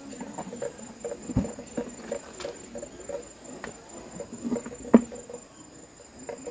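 Green papayas being lifted out of a plastic bucket and set down on leaves: rustling and handling with scattered knocks, the sharpest about five seconds in.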